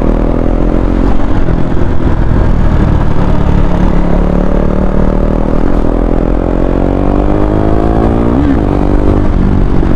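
KTM Duke 390's single-cylinder engine pulling the bike along, its pitch rising steadily over several seconds as it gathers speed, over heavy wind rumble on the microphone.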